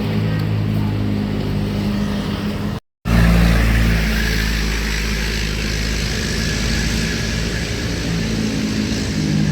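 Large bus engine running as buses pass close by, with a deep low rumble that grows strong just after a brief dropout to silence about three seconds in.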